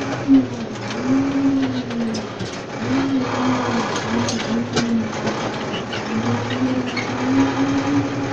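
Tractor engine running while pulling a tine stubble cultivator, its tone rising and falling over and over, with scattered metallic clicks and rattles from the implement and hitch.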